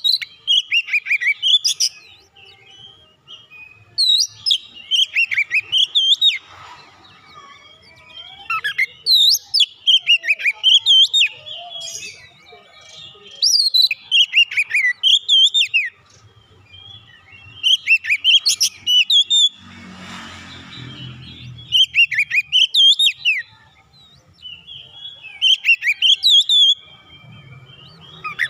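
Male Oriental magpie-robin singing loud phrases of sweeping, rising and falling whistles, each about two seconds long, repeated about every four seconds. A short rustling noise comes about two-thirds of the way through.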